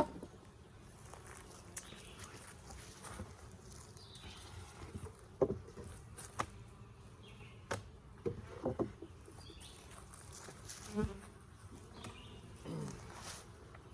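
Honeybees buzzing steadily around an opened hive, with several sharp knocks and clicks from the hive parts being handled, the loudest right at the start.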